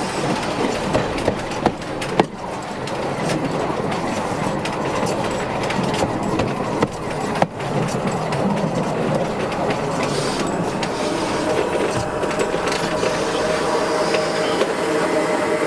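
Narrow-gauge steam locomotive rolling slowly over the rails during shunting, with a dense, steady running noise and sharp clicks of the wheels over the track in the first half. In the last few seconds a steady humming tone joins in as it slows almost to a stop.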